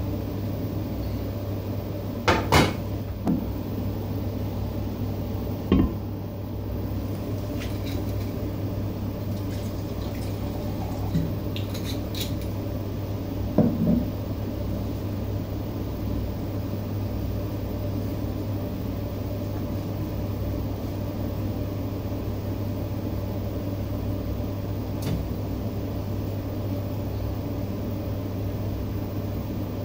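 Steady low hum with a few sharp clinks and knocks of a stainless-steel container being picked up and set down on a kitchen counter. The loudest knocks come about two and a half seconds in, near six seconds and near fourteen seconds.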